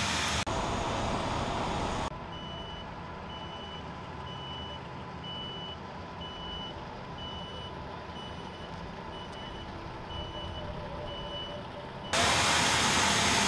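Vehicle backup alarm beeping a short, high, steady tone about once a second over a low engine hum. Louder steady machinery noise cuts off sharply about two seconds in and comes back sharply near the end.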